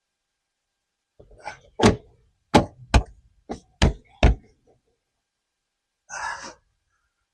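About six sharp knocks in quick succession, the sound of a hand pressing and tapping plastic body panels on a Can-Am Spyder RT into place. A short burst of noise follows about two seconds later.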